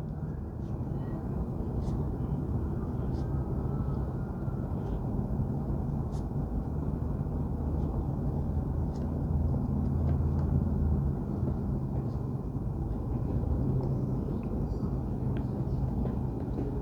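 Steady low droning hum, with a few faint soft ticks scattered through it.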